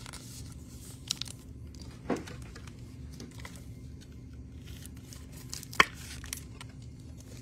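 Trading cards and plastic card sleeves being handled on a table: sliding and crinkling, with a few light clicks, the sharpest about six seconds in, over a steady low hum.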